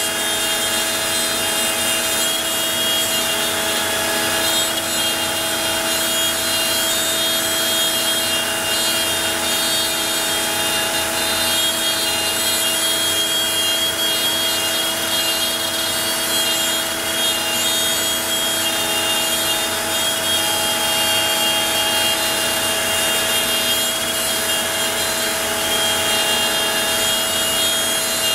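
Onefinity CNC router cutting a shape, its router motor running at a steady high whine over the noise of the spinning bit working through the stock.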